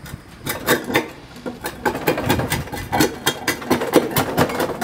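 HYTILE manual roof tile cutter's chisel tapping down against its wheel, nibbling through a concrete roof tile with no blade or motor: a rapid, irregular run of sharp clacks, about four a second.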